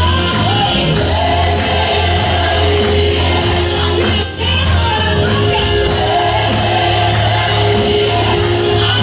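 Gospel worship song with a lead singer and backing vocals over a steady bass and band, with shouts.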